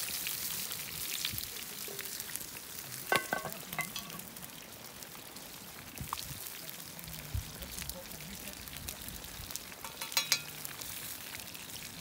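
Wood campfire crackling and hissing, with rain falling. Two brief sharper sounds stand out, about three seconds in and again near the end.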